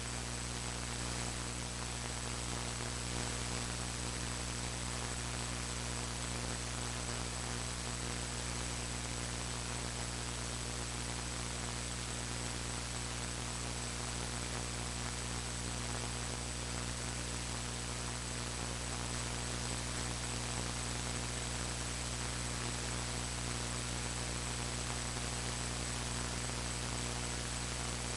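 Steady electrical mains hum with static hiss and a thin high-pitched whine, unchanging throughout: noise from a faulty recording audio chain, with no speech.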